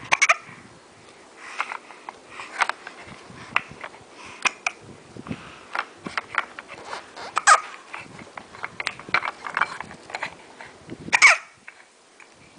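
Hiccups: a string of short, sharp hiccup sounds at uneven spacing, with small vocal noises between them. The loudest come right at the start and about eleven seconds in.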